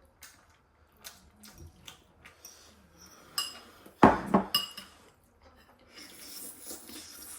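Cutlery clinking and knocking against bowls and a pot, a scatter of light clicks with a few ringing clinks; the loudest knock comes about four seconds in.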